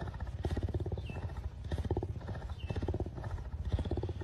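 Cougar purring, a rapid even rattle that swells and eases with each breath in and out, the sign of a content cat.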